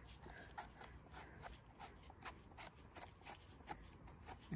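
Faint scraping and small clicks of a knife trimming soil off the stem of a freshly picked bolete mushroom, in quick, irregular strokes.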